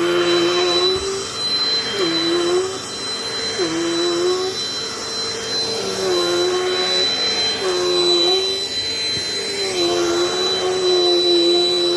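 Dirt Devil Dynamite Plus vacuum cleaner running, with a steady high motor whine. A lower hum under it dips in pitch and fades and returns every second or two.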